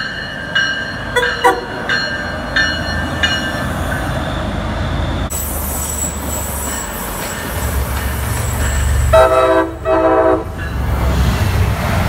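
MBTA trains at a station over a constant low rumble: first a quick run of short repeated ringing tones, then a train passing with a steady high wheel squeal, then two short train-horn blasts a little past three-quarters of the way through.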